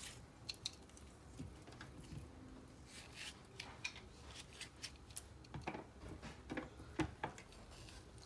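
Chef's knife cutting a cucumber into lengthwise strips over a wooden cutting board: faint, irregular crisp cuts and light knocks of the blade and pieces on the board, a few sharper knocks in the second half.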